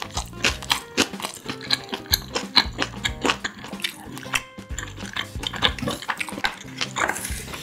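Close-miked chewing and mouth sounds of someone eating spoonfuls of rice mixed with stir-fried kimchi and fried anchovies: many short, sharp smacks and crunches, over steady background music.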